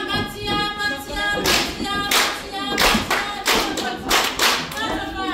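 Singing accompanied by hand-clapping in a steady rhythm, about one and a half claps a second.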